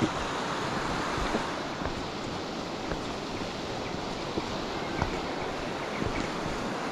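Steady rushing of a fast-flowing burn in spate, with a few faint clicks.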